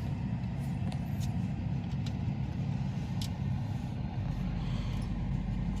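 Steady low hum, with a few faint light clicks from handling small parts.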